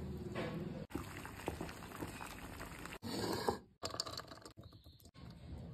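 A run of short kitchen food-prep sounds cut abruptly one into the next. They include water in a pot holding a whole cabbage and, about four seconds in, diced red onion tipped from a small bowl, the pieces pattering into a ceramic bowl.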